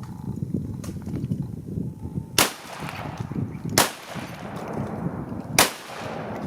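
Three shotgun shots, about one and a half to two seconds apart, fired at incoming ducks.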